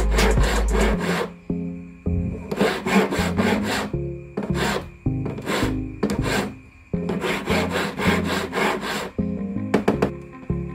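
Flat hand file scraping back and forth across the edge of a silver ring, in runs of quick strokes broken by short pauses.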